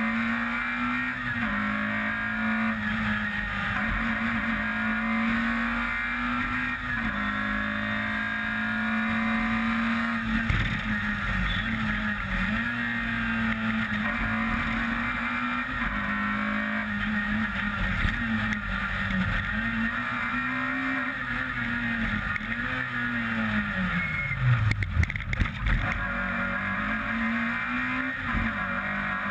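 Peugeot 106 rally car's engine at high revs on a special stage, the pitch climbing through each gear and dropping at every shift. Near the end the revs fall steeply, with several loud knocks.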